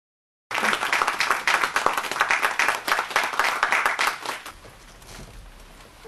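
Audience applauding, starting suddenly and dying away after about four seconds.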